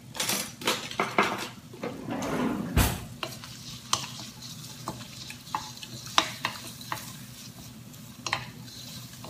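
Strips of beef sizzling in hot grapeseed oil in a stainless steel Amway iCook pot while a utensil stirs them, with repeated sharp clicks and scrapes of the utensil against the pot, busiest in the first few seconds. One heavier knock about three seconds in.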